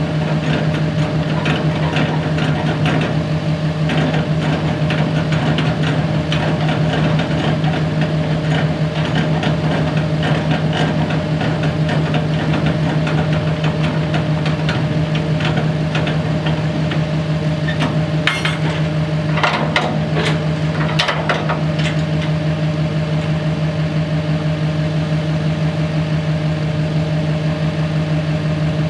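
Engine running steadily at one speed, with scattered knocks and rattles over it and a cluster of sharper clanks about two-thirds of the way through.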